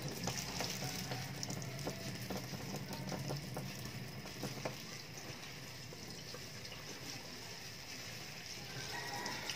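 Tap water running into a stainless steel sink and splashing over gloved hands as they rinse ink-soaked printer parts, with scattered small clicks and knocks. A low hum sits under it for the first half and fades out about halfway.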